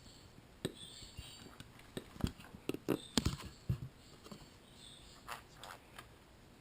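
Pineapple green-cheeked conure chattering softly while being scratched: a run of short high chirps and clicky mumbles, busiest around the middle.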